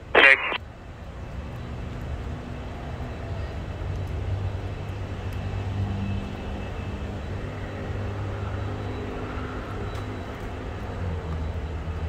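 Steady low drone of a distant jet airliner's engines on the runway. A brief burst of airband radio sounds at the very start.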